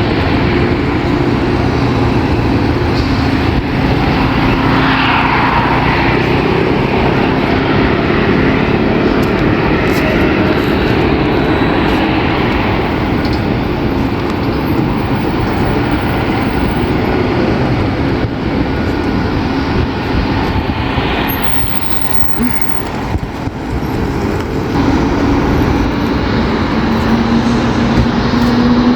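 Embraer 195-E2 jet on its takeoff run: a steady engine roar with low, wavering whale-like tones that shift in pitch, one rising near the end.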